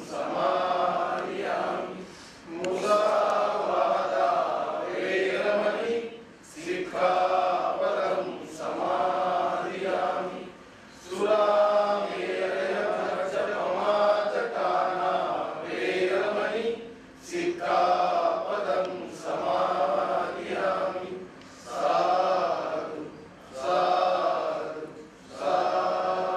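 A group of voices chanting a prayer in unison, in short phrases of a second or two with brief pauses for breath between them.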